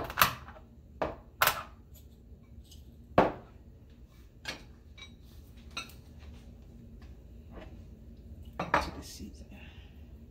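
Glass knocking and clinking in scattered single strikes as whole pimento (allspice) seeds are crushed by hand in a small glass dish. The loudest knock comes about three seconds in, with a short cluster of knocks near the end.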